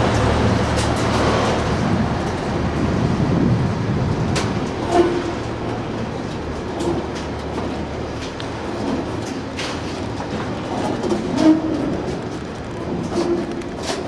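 Network Rail ballast hopper wagons of a freight train rolling slowly past, their wheels rumbling over the rails with scattered sharp clicks and several brief squeaks.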